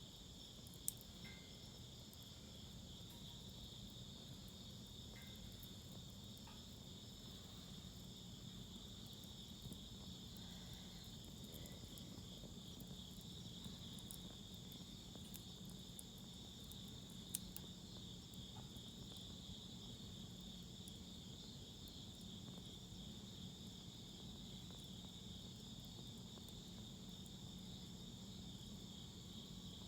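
Insects chirring steadily, with a few sharp pops from the burning wood in the fire pit; the loudest pops come about a second in and a little past halfway.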